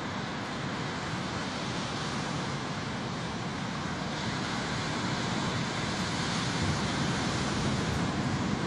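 Ocean surf breaking on a beach, a steady rushing wash that grows a little louder in the second half.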